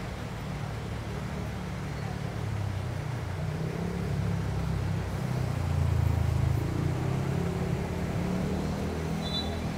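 A motor vehicle engine running low in street traffic, its rumble growing louder toward the middle and then easing off as it passes.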